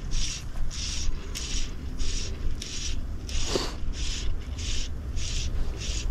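An insect buzzing in even, repeated pulses, about one and a half a second, over a low rumble of wind on the microphone. A single brief swish comes about halfway through.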